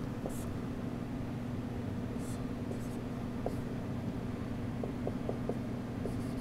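Dry-erase marker drawing on a whiteboard: a few short high squeaks of the felt tip and small taps as strokes are laid down, over a steady low room hum.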